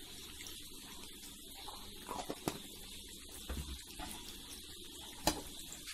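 Eggs frying gently in oil in a pan over low heat: a faint, steady sizzle, with a few soft clicks.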